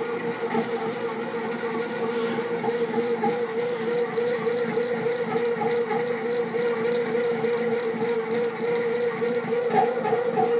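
Bread machine running its kneading cycle, giving a steady, wavering mechanical whine that sounds odd. The owner suspects the kneading shaft at the bottom of the pan and tries oiling it to quiet it.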